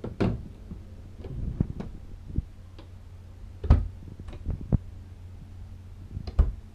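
Wooden RV cabinet doors and louvered pantry doors being handled and opened and shut by hand: a scattered series of clicks and knocks, the loudest about three and a half seconds in, over a low steady hum.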